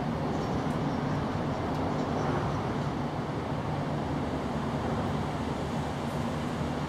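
Steady rumble of motor traffic, with a low hum under an even wash of noise that does not change.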